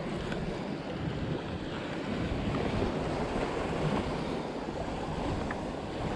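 Sea waves washing against a rocky shore, with wind buffeting the microphone and a few faint clicks.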